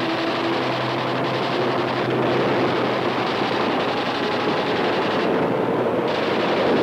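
Steady, dense roar of aircraft engines on an old film soundtrack, with a low held tone under it for the first few seconds.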